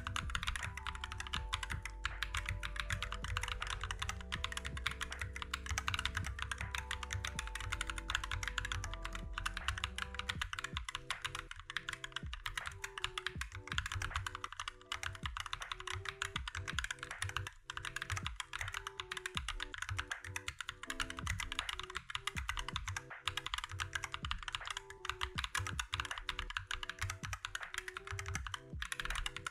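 Fast, continuous typing on a MonsGeek MG108 full-size mechanical keyboard with Akko CS switches: a dense stream of keystroke clacks, over soft background music.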